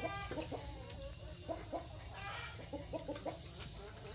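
Chickens clucking in a run of short calls, several a second, over a faint steady high-pitched whine.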